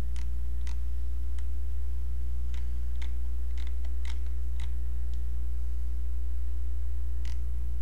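Steady low hum under about a dozen short, irregular clicks from a computer mouse as a web page is scrolled.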